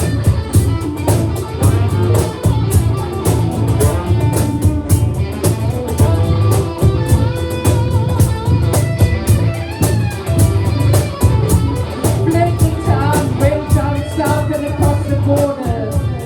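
Live psychedelic rock band playing: electric guitar over bass and drums with a steady beat.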